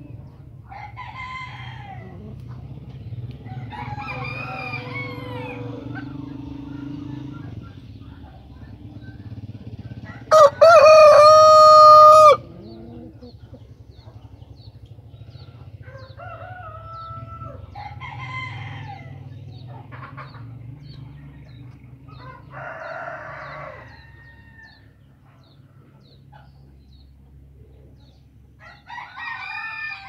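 Chickens calling in a pen: a rooster crows once, loud and close, for about two seconds about ten seconds in, while fainter crows and clucks from other chickens come and go every few seconds.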